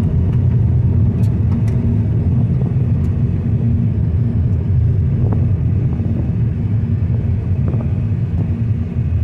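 Steady low rumble of a car driving on a gravel road, heard from inside the cabin, with a few faint ticks.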